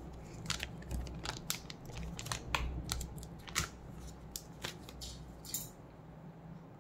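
A small paper carton being handled and opened: scattered light clicks and rustles of the packaging, thinning out near the end.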